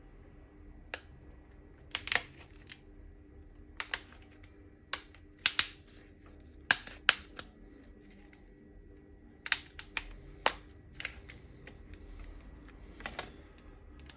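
Irregular sharp clicks and taps of small tools and phone parts being handled during phone disassembly, about fifteen, some in quick pairs.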